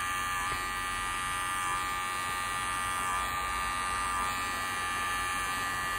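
Wahl Senior hair clippers running with a steady buzz as the blade trims along the forehead hairline.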